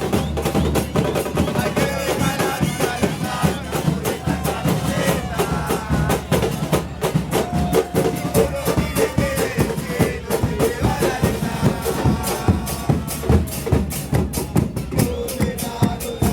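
Football supporters' band playing: bass drums beating a fast, steady rhythm under long held horn-like tones.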